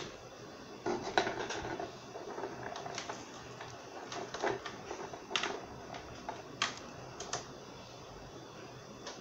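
Irregular light clicks and taps from hands handling things on a wooden desk, about a dozen spread over several seconds.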